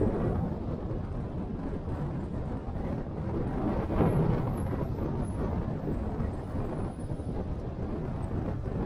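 Steady rumble of a car on the move: road and wind noise, swelling briefly about four seconds in.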